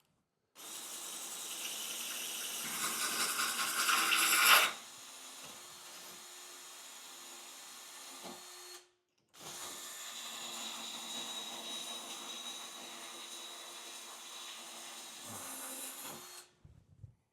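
Variable-speed drill boring through ceramic wall tile with a spear-point tile bit. The grinding grows louder for about four seconds, drops abruptly to a quieter, steadier sound, stops briefly, then runs again for about seven seconds, with a few light knocks at the end.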